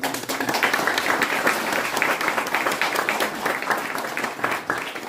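An audience clapping together, starting all at once and thinning out near the end.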